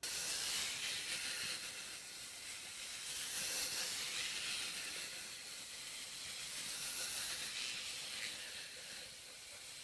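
A steady hissing noise that swells and fades slightly.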